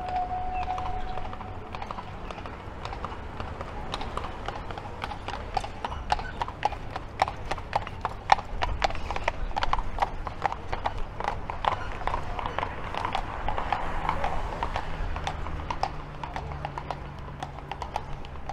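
Carriage horses' hooves clip-clopping on the street as a horse-drawn carriage passes. The quick hoofbeats come in a few seconds in, are loudest in the middle and thin out near the end.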